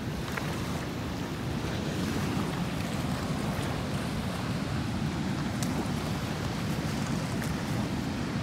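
Steady low rush of water pouring through the open gates of the Bonnet Carré Spillway, mixed with wind on the microphone.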